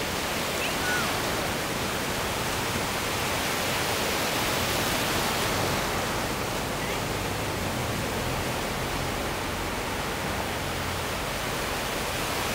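Ocean surf breaking and washing up a sandy beach: a steady rushing noise that swells slightly midway.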